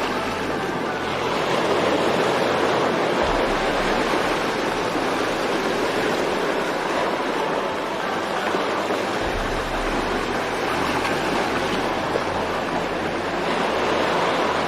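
Steady rushing-water noise, like surf or a waterfall, holding an even level throughout.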